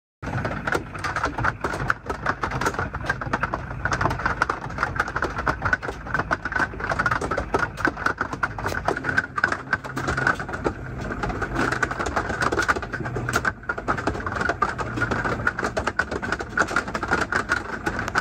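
Heavy rain drumming steadily on the roof of a camper van, heard from inside as a dense, continuous patter of taps.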